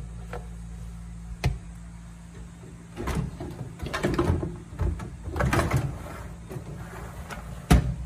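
Wire dish racks of a countertop dishwasher being slid on their rails and handled, rattling and clattering in several irregular bursts, with a sharp knock near the end.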